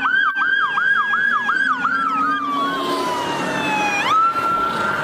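Several police cruiser sirens sounding at once: a fast yelp that gives way to a long wail sliding slowly down in pitch, jumping back up about four seconds in and holding, with other sirens sweeping alongside.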